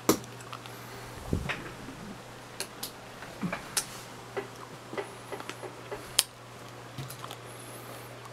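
Irregular light taps, clicks and rustles of two cats pawing at a toy mouse on papers on a desk, over a steady low hum.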